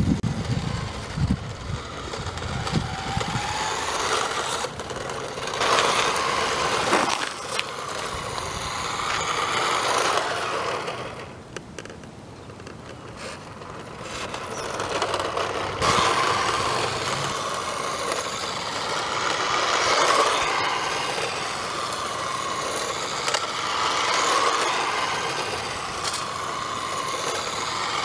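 Radio-controlled toy 1957 Chevy car's small electric motor and gears whining as it drives over asphalt, getting louder and fading several times as it runs nearer and farther, with a quieter stretch about halfway through.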